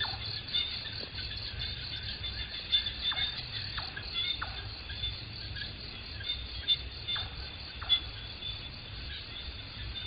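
Night-time insect chorus in a forest: a steady, high, rapidly pulsing trill with a thin sustained whine, over a low rumble. Short calls falling in pitch break in now and then, most often in the first half.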